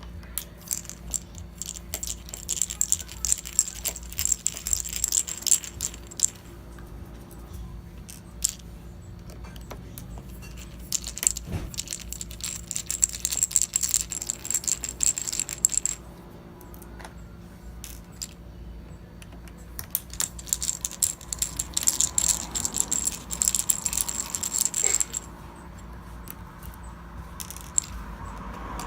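Small screws being worked out with a T8 Torx screwdriver: spells of rapid, light metallic clicking and rattling, three times, with short quiet gaps between.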